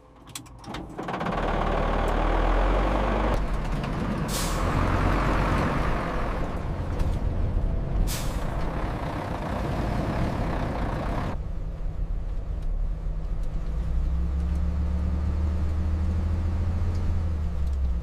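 A bus engine running steadily with a low rumble, and two short air-brake hisses about 4 and 8 seconds in. The noisier part of the sound drops away after about 11 seconds, leaving a smooth low drone.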